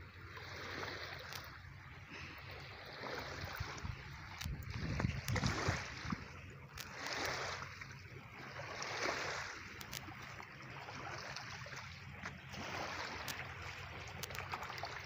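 Small waves lapping against a rocky river bank, coming in repeated swells every second or two, with a few faint clicks.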